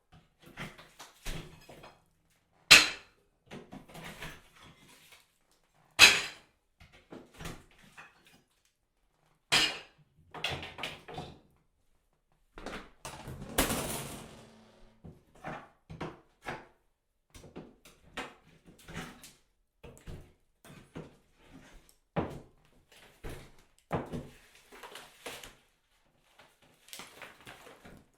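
Bathroom tiles and drywall being broken and taken down: irregular knocks and sharp strikes with scraping in between, and a longer crash about fourteen seconds in.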